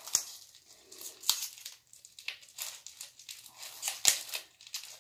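Plastic packaging rustling as it is handled, in short irregular bursts, with three sharp snaps, about a second in and near the end.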